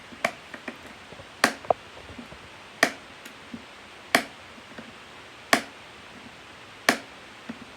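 Metal latch on a Singer 221 Featherweight carrying case being snapped open and shut over and over, six sharp clicks about a second and a half apart, some with a fainter click after. The latch has just been oiled and is being worked back and forth to free it from sticking.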